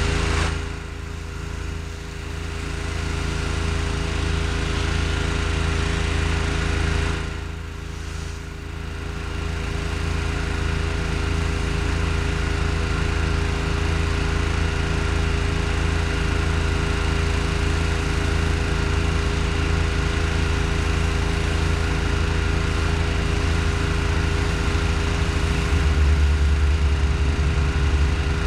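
Pressure washer's petrol engine running steadily under load, with two brief dips in level, about a second in and again around eight seconds in.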